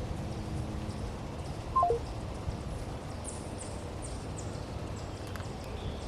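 Walking on a dirt trail, with a low steady rumble of steps and wind on the microphone. About two seconds in, a short electronic beep of three falling notes sounds loudly, and a little later a bird gives a run of faint, high, quick falling chirps.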